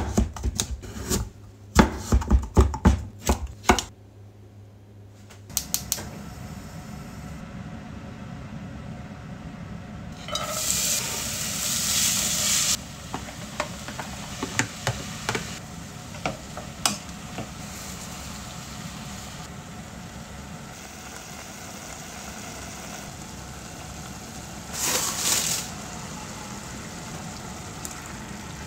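A kitchen knife chopping on a wooden cutting board in quick strokes for the first few seconds. Then diced vegetables sizzle in a pot and are stirred with a wooden spoon, with louder sizzling twice: about ten seconds in and again near the end.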